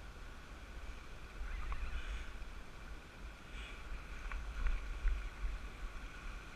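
Wind buffeting the microphone over surf washing against jetty rocks, with a few faint ticks in the middle.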